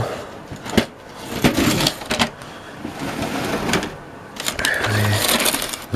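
Plastic model-railway kit parts being handled and set down on a table: scattered clicks and knocks with bits of rustling.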